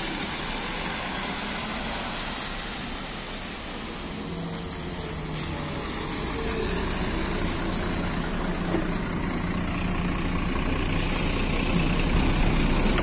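Diesel engine of a MAZ-105 articulated city bus running steadily at a stop, growing louder near the end.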